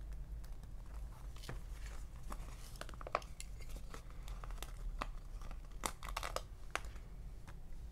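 Crinkling and crackling of a silver metallic sticker sheet being handled and flexed, with scattered sharp clicks of paper and plastic.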